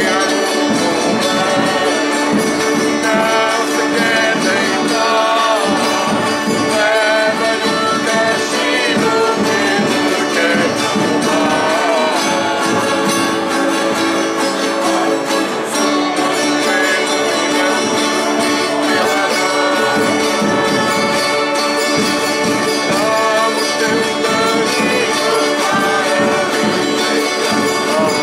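Folk ensemble of violas amarantinas, ten-string Portuguese folk guitars, and other guitars playing a traditional tune together: a dense, steady bed of strummed and picked double-course strings.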